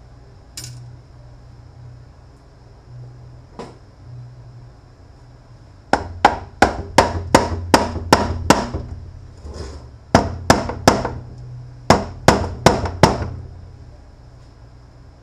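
Hammer blows on a BorgWarner 1356 transfer case: three quick runs of sharp, ringing strikes, about sixteen in all, starting near the middle, after a couple of light clicks.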